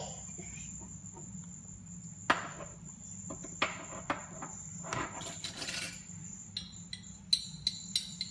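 Small plastic clicks and taps of a bottle and its red cap being handled, coming as scattered single clicks and then a quick run near the end, over a steady high-pitched whine.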